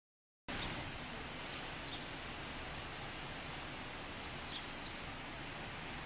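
Steady outdoor hiss beginning about half a second in, with faint, short, high chirps of small birds now and then.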